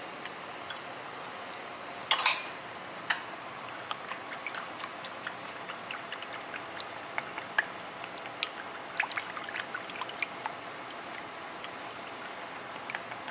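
A ladle and bowls clinking as liquid is ladled and stirred in small bowls, with irregular light clicks and one louder clatter with a splash about two seconds in. Here the liquid is pig's blood being mixed for tiết canh.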